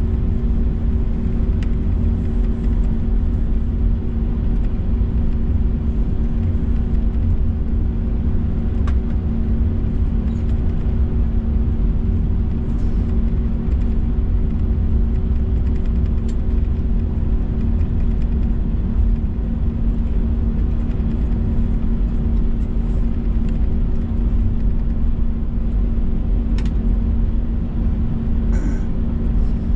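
Steady jet engine and airflow rumble inside the cabin of an Airbus A321 under power, a deep, even roar with a constant low hum.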